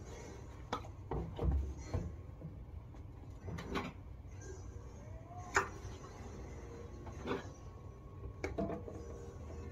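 Scattered light knocks and clatter of household items being handled and set down, irregular sharp taps, the loudest about five and a half seconds in.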